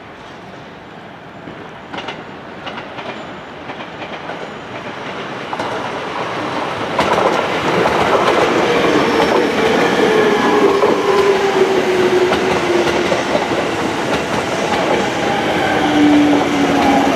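JR 205 series 5000-subseries electric train pulling in and passing close by. Its wheels clatter over the rail joints and grow much louder from about halfway through. The traction motors' whine slides down in pitch as the train brakes for the station.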